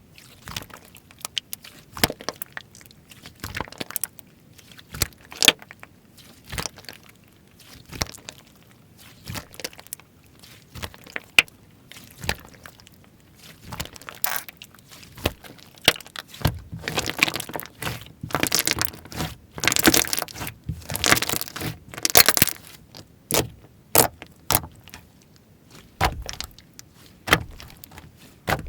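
Slime being squeezed and pressed by hand: a string of sharp clicks and pops, thickest and loudest about two thirds of the way through.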